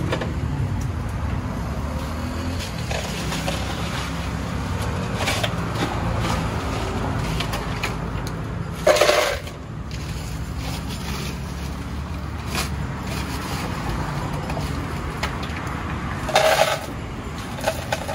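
Steady low rumble of road traffic, with two short, louder clatters, one about halfway through and one near the end.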